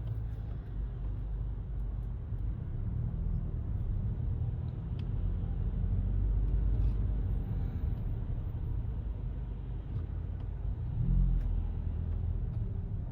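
Car driving along: a steady low rumble of engine and road noise, swelling briefly near the end.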